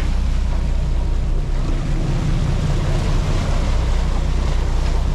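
A boat's engines running steadily underway, a constant low drone, with wind on the microphone and rushing water along the hull.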